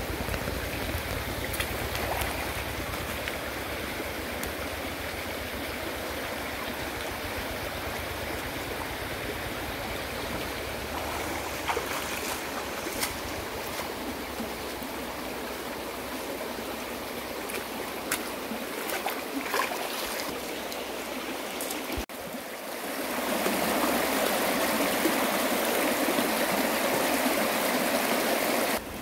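Water running steadily, the sound of a flowing stream, with scattered small clicks and splashes. About three quarters of the way through it drops out briefly and comes back louder.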